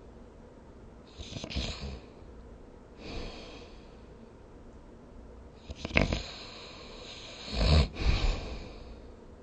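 A sleeping person snoring, irregular breaths with low snores at uneven gaps. A sharp click in the throat comes about six seconds in, and the loudest snore follows soon after.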